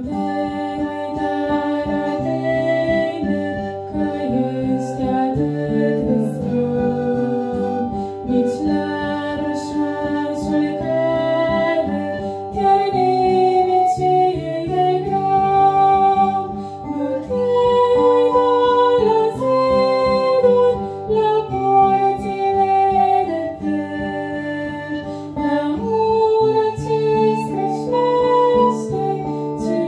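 A woman singing a Christian hymn in Romanian, accompanied by a strummed acoustic guitar and a pan flute.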